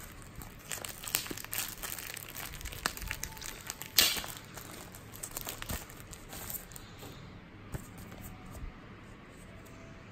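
Clear plastic sleeve crinkling in handling as a folded paper instruction sheet is slid out of it: a run of irregular crackles with one sharper crackle about four seconds in, dying down over the last few seconds.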